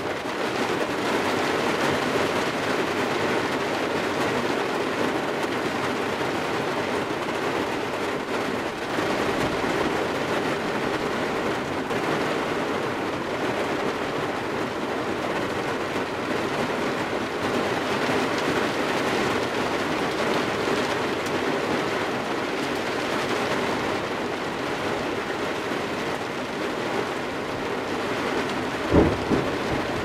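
Steady rain falling on the body and windows of a Toyota 4Runner, heard from inside the vehicle's cargo area. About a second before the end comes a sudden sharp crack of thunder.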